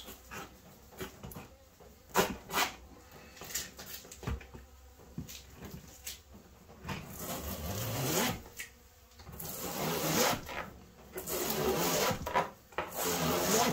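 Old brood comb being scraped off a wooden frame with a hand scraper: rough scratching strokes of the blade through the wax, with chunks of comb dropping into a plastic bucket. The scraping is heaviest in the last few seconds.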